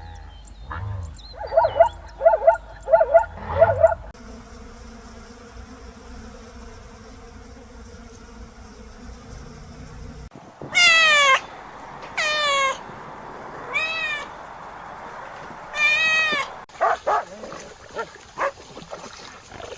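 Domestic cat meowing: about five separate meows in the second half, each falling in pitch. Earlier there is a run of short, quickly repeated animal calls, then a stretch of quieter steady background.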